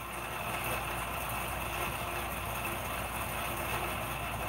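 A steady mechanical hum with hiss.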